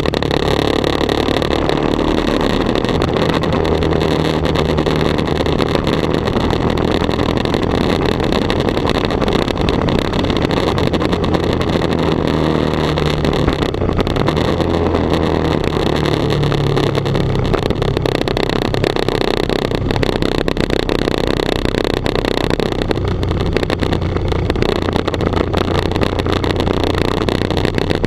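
Sport motorcycle engine heard from a handlebar-mounted camera while riding, its note rising and falling with the throttle, under a loud, steady rush of wind and road noise that buries most detail.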